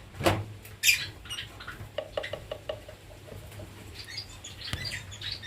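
Pet lovebirds chirping and squeaking in their cage, with a couple of sharp knocks from handling the wooden nest box in the first second.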